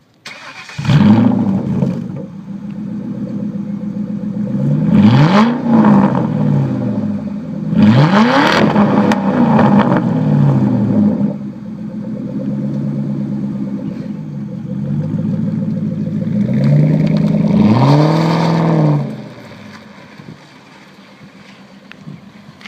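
Lincoln Mark VIII's 4.6-litre DOHC V8 running through an open, unmuffled exhaust. It starts up loudly about a second in, is revved several times with the pitch rising and falling back each time, and drops sharply away near the end.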